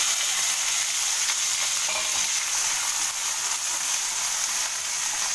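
Potato cubes sizzling steadily as they fry in hot oil in a frying pan, with a wooden spatula stirring them.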